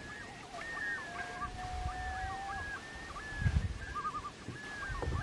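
Two birds calling at each other in a long run of short rising and falling calls, with a long steady call in the first half and quick wavering trills near the middle and end. A dull low knock about three and a half seconds in.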